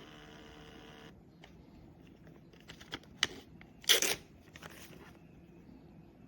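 Handling noises: a few light clicks and taps, and a short papery rustle about four seconds in. A steady electrical hum cuts off suddenly about a second in.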